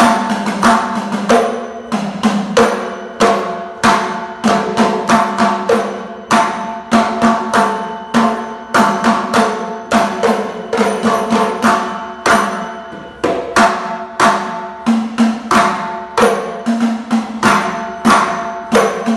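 Mizhavu, the large copper pot drums of Koodiyattam, played by hand in a fast run of sharp strokes with uneven accents, over a steady ringing tone.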